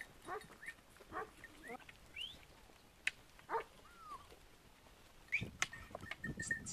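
Scattered short animal calls from around a grazing goat herd, with a few quick bird-like chirps and two sharp clicks. Near the end a rough rustling sets in, like footsteps over rocky ground.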